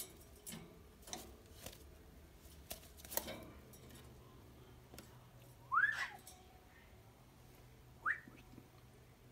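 Two short, rising whistles about two seconds apart, the first the louder, preceded by several light clicks and taps.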